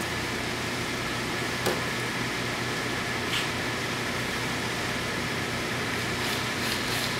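Steady mechanical hum and hiss of hangar background noise, with a few faint short clicks.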